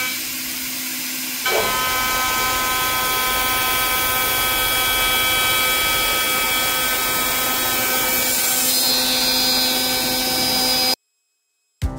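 CNC router spindle with an end mill milling 6061 aluminium plate. It makes a steady whine of several tones over a rushing cutting noise, which steps up louder about a second and a half in and cuts off abruptly near the end.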